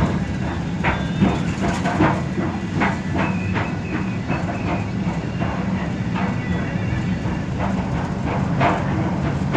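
Cabin noise of a moving express bus: a steady engine and road drone with frequent clicks and rattles from the interior fittings, and a faint high tone for a couple of seconds near the middle.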